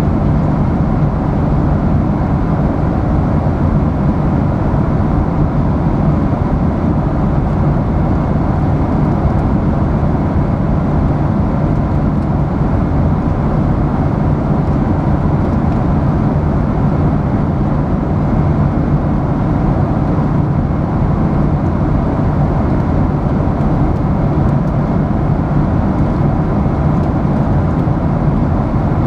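Steady airliner cabin noise in cruise flight: an even rushing drone of airflow and engines with a low hum underneath, unchanging throughout.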